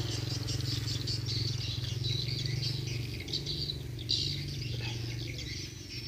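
Swiftlets twittering: clusters of rapid high chirps that come and go, over a steady low hum.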